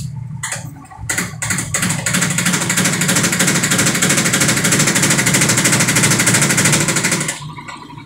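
Sharp top-load automatic washing machine on spin-dry: a few separate knocks, then from about two seconds in a loud, fast, even rattling clatter as the loose, wobbling tub bangs against the cabinet, stopping abruptly near the end as the spin halts while still building speed. The noise is the sign of a defective tub assembly that is too loose at speed.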